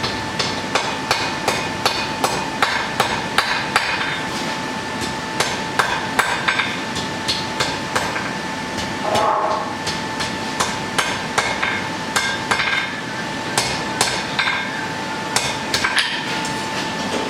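Blacksmith's hammer striking a hot iron bodkin arrowhead on an anvil, in quick runs of blows about two to three a second, with a pause of a couple of seconds near the middle. A steady high hum runs underneath.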